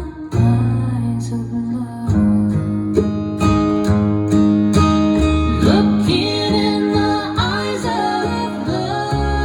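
Recorded song with guitar and bass, played back through a VT62 push-pull valve amplifier running without negative feedback.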